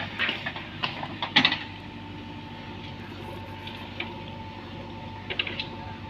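JCB backhoe loader working its digging arm: sharp metallic clanks and knocks from the arm and bucket in the first second and a half, with a few lighter clicks later. Underneath, the diesel engine runs steadily, and a thin steady whine sets in about a second and a half in.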